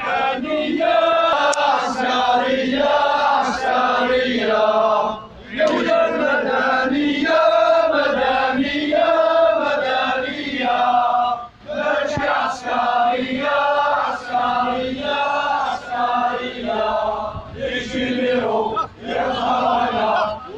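A crowd of men chanting protest slogans in unison, in a steady sing-song rhythm. The phrase repeats about every six to seven seconds, with a short break between repetitions.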